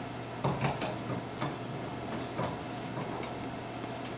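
Scattered light metal clicks and knocks of two wrenches working a mini-split line set's quick-connect fitting as it is snugged tight, over a steady low hum.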